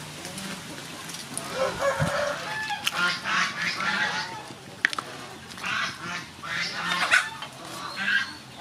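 Domestic fowl calling over and over in short calls, starting about a second and a half in, with a few sharp clicks among them.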